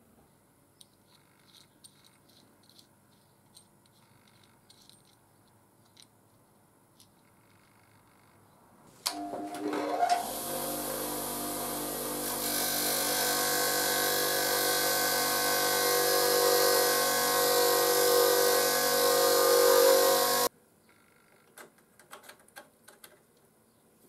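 Faint clicks of small metal switch parts being handled, then a bench grinder running with a small part of the dash light switch held against its wheel: a steady motor hum under a loud grinding noise, which grows louder about twelve seconds in. It starts about nine seconds in and cuts off suddenly about twenty seconds in, followed by more light clicks.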